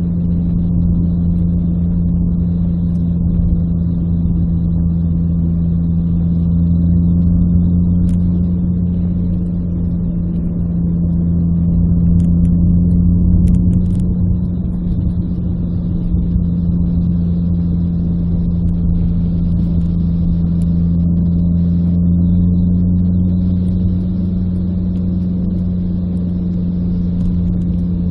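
Renault Clio RS 172's 2.0-litre four-cylinder engine heard inside the cabin, droning steadily at a constant cruise, swelling slightly now and then.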